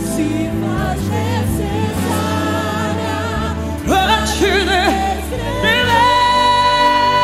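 Live gospel worship song: a woman singing with wide vibrato over band accompaniment. About four seconds in her voice slides up, and it holds a long high note near the end.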